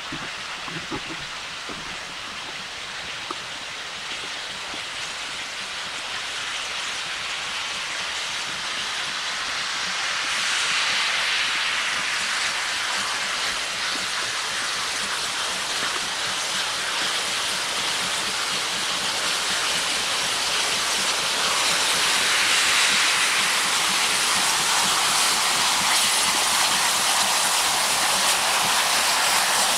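LMS Black Five 4-6-0 steam locomotive No. 5025 drifting in slowly with a steady hiss of steam from its open cylinder drain cocks, growing louder as it approaches.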